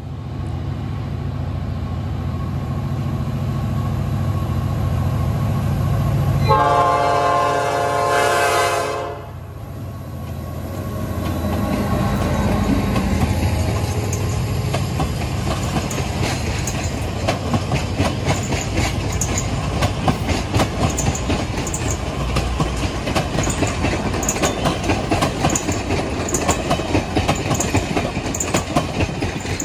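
A passenger train passes close by. The diesel locomotive rumbles as it approaches and sounds its horn once, a chord lasting about two and a half seconds about 7 seconds in. Then the passenger cars roll past, their wheels clicking steadily over the rail joints.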